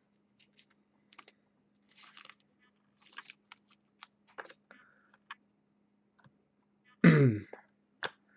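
Faint crinkles and light clicks of a trading card and a clear plastic card sleeve being handled, with a short spoken sound about seven seconds in.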